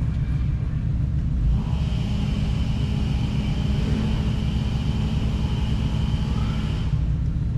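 Jeep engine running with a steady low rumble. From about a second and a half in until near the end, a steady mechanical whine joins it and then stops.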